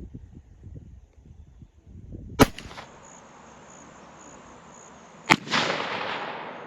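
Two rifle shots about three seconds apart, the second followed by a long rolling echo that fades out over about a second and a half.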